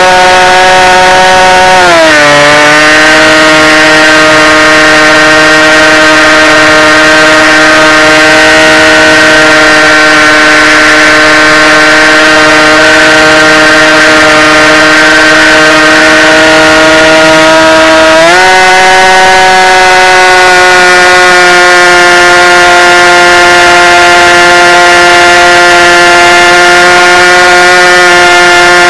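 SunnySky brushless electric motor and propeller of a fixed-wing FPV plane in flight, a loud steady whine picked up by the onboard camera. The pitch drops about two seconds in as the throttle eases, holds lower, and steps back up again near the eighteen-second mark.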